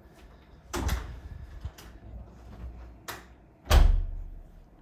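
A flat's front door being shut, heard as sudden thuds and knocks. There is one about a second in, a sharper knock around three seconds, and the loudest thud, with a short low boom, just after it.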